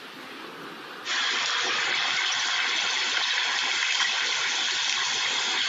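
A loud, steady hissing rush from an advancing lava flow front as it smokes and burns through grass, starting abruptly about a second in after a fainter rumbling noise.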